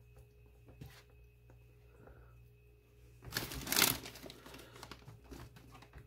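Shredded lettuce being handled and spread onto tostadas: faint rustles and light taps, then a louder crinkling rustle lasting about a second, about three seconds in, and smaller rustles after it.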